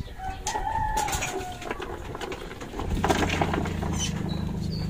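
A rooster crows once at the start, one long wavering call. From about three seconds in, an engine runs steadily at a low pitch, with scattered knocks and clatter.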